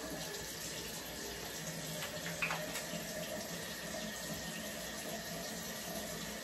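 Water running steadily from a bathroom sink tap into the basin. A faint click comes about two and a half seconds in.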